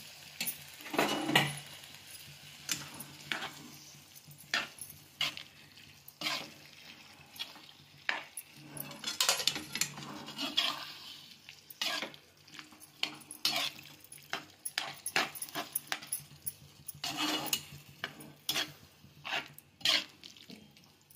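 Metal spatula stirring boiled chickpeas in gravy in a kadhai, in many irregular strokes, scraping and knocking against the pan.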